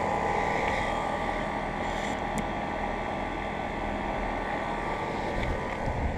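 2016 Trane 4-ton heat pump outdoor units running in cooling mode: a steady whoosh from the condenser fans over the even hum of the scroll compressors.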